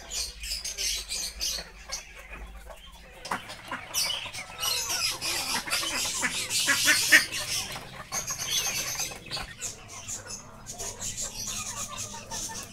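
Hens clucking among a crowd of small cage birds chirping, the calls growing busier about three seconds in.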